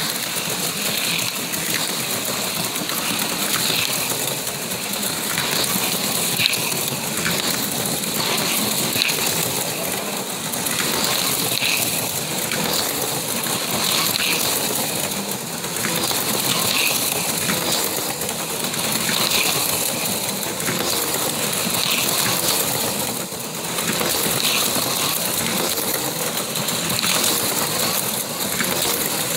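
Four HO-scale slot cars lapping an oval track at about half throttle: the steady buzzing whir of their small electric motors and the rattling clatter of the cars in the slots. It swells about every two and a half seconds as the cars pass close by.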